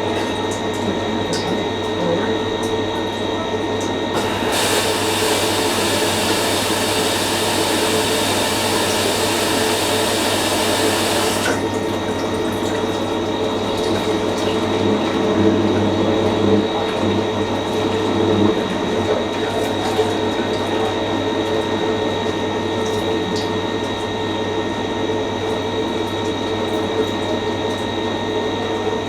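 Fisher & Paykel MW512 washing machine running: a steady motor or pump hum with water moving. From about four seconds in, a loud hiss of water joins for some seven seconds, then cuts off sharply.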